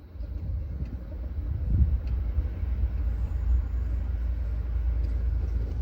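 CSX freight train L658 rolling over a phone placed under the tracks, heard from beneath the cars: a steady deep rumble with a heavier thump about two seconds in.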